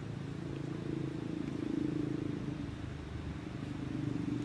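An engine running steadily: a low, pulsing drone that holds without a break.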